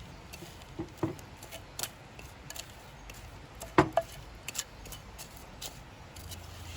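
A spoon knocking and scraping against a mixing bowl as a sticky chocolate and puffed-rice mixture is scraped out into a paper-lined tray. The knocks are scattered and irregular, and the loudest comes about four seconds in.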